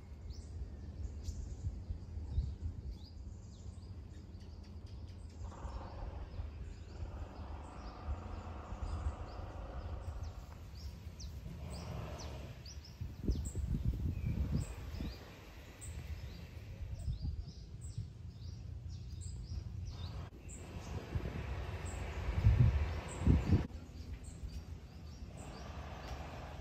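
Small birds chirping, short high calls scattered throughout, over a steady low outdoor rumble, with a few louder low bumps about halfway through and again near the end.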